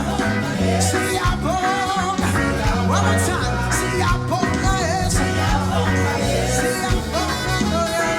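Live praise and worship band playing an upbeat song, with a steady bass line, drums with cymbal strokes, and a wavering lead voice singing over it.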